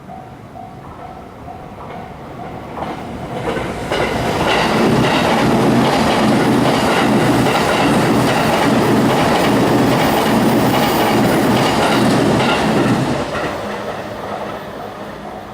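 Level-crossing bell ringing in steady repeated dings as a train approaches. The train comes through about three seconds in, its wheels loud on the rails for about nine seconds, then fades as it passes, and the bell is heard again near the end.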